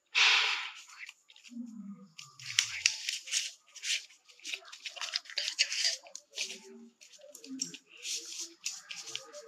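Paper rustling and crinkling in irregular bursts as hands handle and press a rolled paper tube, loudest right at the start.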